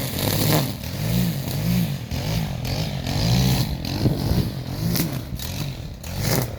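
Small gasoline engine of lawn equipment running, its pitch swelling up and down in even pulses about twice a second.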